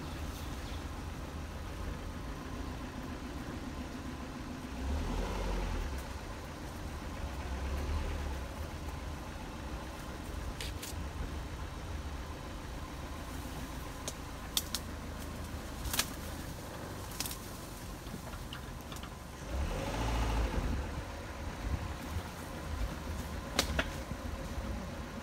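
Dodge Neon's four-cylinder engine running at low speed over a rough trail, a steady low rumble that swells louder a few times, most strongly about five and twenty seconds in. A few short sharp knocks and clicks come through in the second half.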